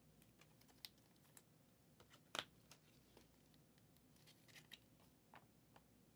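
Near silence with a few faint clicks and scrapes, the clearest about two and a half seconds in, from trading cards being handled and flipped.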